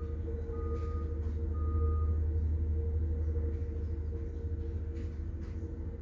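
Caterpillar tandem-drum asphalt roller's engine running steadily. Its backup alarm beeps about once a second, three times in the first two seconds, then stops.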